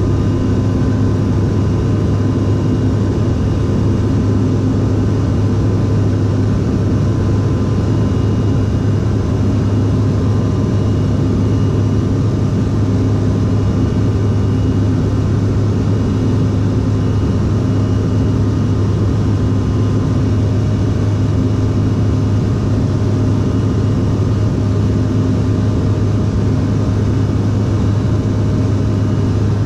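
Steady cabin drone of a CRJ-700 in flight, heard from a window seat near its rear-mounted GE CF34 turbofans: a deep hum with several faint, steady whining tones above it.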